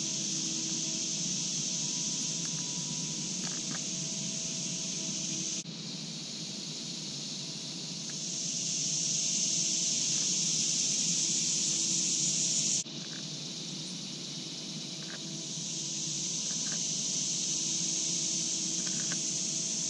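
A steady, high-pitched late-summer insect chorus. It drops off suddenly twice and swells back up each time.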